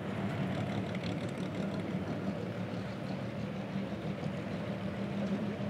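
Truck engine droning steadily under a constant hiss of blowing snow and wind.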